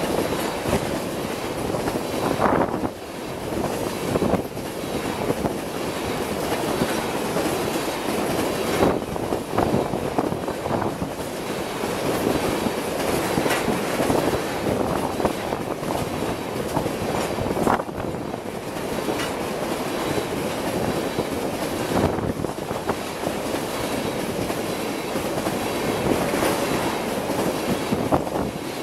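Empty Norfolk Southern ethanol tank cars rolling past close by: a steady rumble and rattle of steel wheels on rail, with repeated sharp clacks as the wheels pass.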